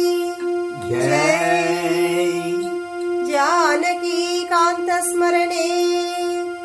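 A woman singing a devotional bhajan phrase over a steady drone held on one note.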